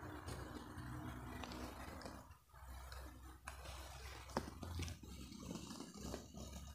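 Faint scratching and a few light taps of a bamboo calligraphy pen (qalam) on paper, over a low steady hum.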